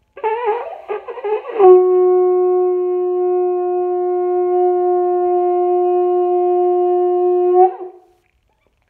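Triton conch shell horn being blown: about a second and a half of wavering, breaking notes while the lips are not sealed properly on the mouthpiece, then the blast catches and a single steady note is held for about six seconds before stopping.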